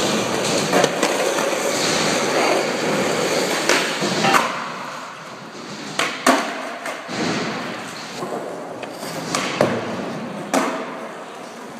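Skateboard wheels rolling on a concrete floor with a steady rumbling hiss, louder over the first few seconds, broken by several sharp clacks and slaps of the board landing on the floor and on wooden ledges.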